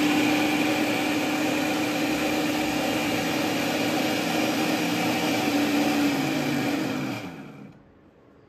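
Electric mixer grinder with a stainless steel jar running steadily, grinding cooked chana dal with spices into a paste. Its motor winds down and stops about seven and a half seconds in.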